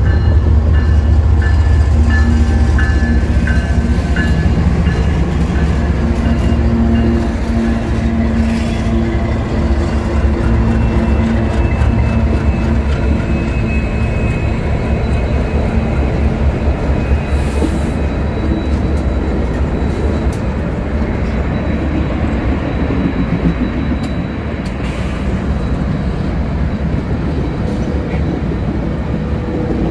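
A lashup of Union Pacific diesel-electric locomotives passing close by, engines running with a deep steady rumble over the sound of wheels on the rails. A faint high wheel squeal comes in about halfway through.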